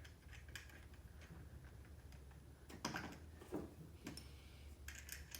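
Faint, irregular small metal clicks and taps from a screw, nut and wrench being handled while the nut is tightened onto a skateboard surf adapter.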